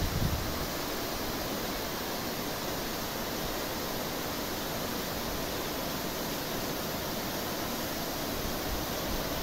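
Steady rushing of a waterfall cascading over rock.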